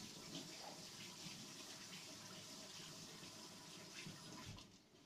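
Kitchen tap running into a stainless-steel sink while an orange is rinsed under the stream; the water is shut off near the end.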